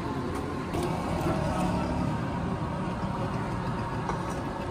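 Steady hum of street traffic, engines running with a low rumble.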